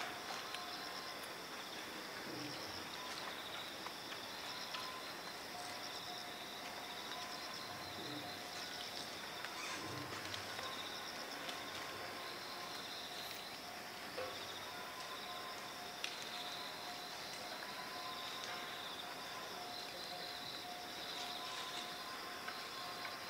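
Steady chorus of insects trilling in high pulsing bands, with a few faint clicks.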